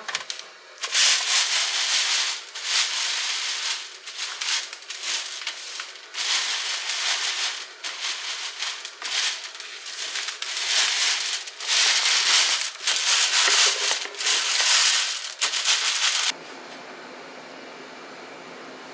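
Frozen elderberries being rubbed and sifted through a wire mesh screen, rattling down into a metal bowl in repeated bursts of a second or two. About three seconds before the end the rattling cuts off suddenly, leaving only a steady low background noise.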